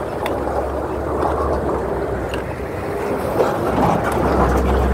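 Wind noise on the microphone and road noise from a moving mountain bike, with motor traffic going by. Near the end a passing truck's engine adds a low, steady hum.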